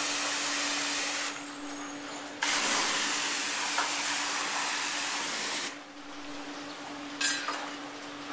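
Car wash jets blasting spray at a car, a loud steady hiss that runs for about a second, drops, then returns for about three seconds before cutting off suddenly. A steady machine hum runs underneath, and there is a short knock near the end.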